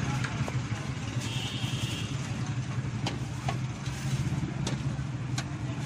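Steady low engine hum of street traffic, with a few short light clicks and rustles as a plastic bag is handled.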